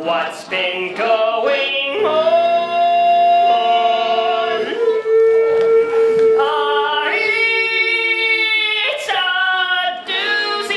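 Stage musical cast singing with instrumental accompaniment, holding several long notes.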